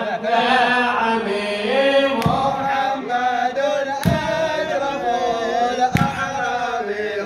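Male voices chanting an Arabic mawlid praise song in a continuous melodic line, with three sharp beats about two seconds apart.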